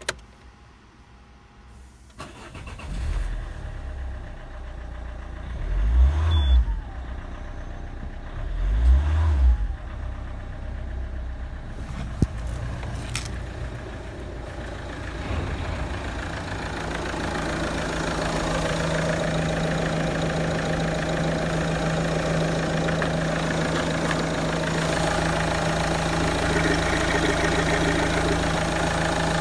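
Peugeot 307's 2.0 HDi DW10BTED4 four-cylinder common-rail turbodiesel starting about two seconds in, revved briefly twice, about six and nine seconds in, then idling steadily. The idle grows louder and closer near the end, heard at the open engine bay.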